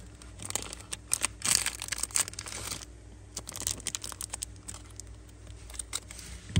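Handling noise of Zippo lighters being picked up and shown: rustling and crinkling with a scattered run of small clicks and taps, busiest about a second and a half in.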